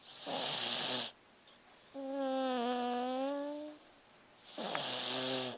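A sleeping pug snoring. Two raspy, noisy breaths of about a second each alternate with a steady pitched, whistle-like tone of about a second and a half.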